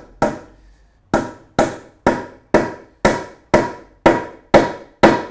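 Hammer driving a glued elm wedge into the end of an ash chair leg's tenon through the seat: about ten sharp blows, roughly two a second after a brief pause near the start. In the second half the blows take on a ringing note, the change of tone that tells the wedge is going all the way home.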